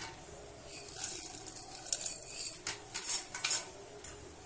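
A handful of short, light clinks and scrapes of a small bowl and utensil against a nonstick cooking pot as whole spices are tipped into it.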